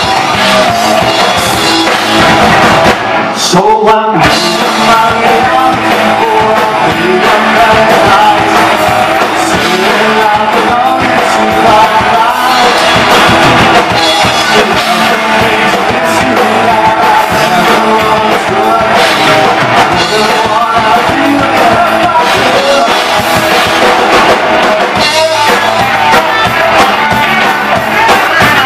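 Live punk rock band playing loud: electric guitar, electric bass and drum kit, with singing.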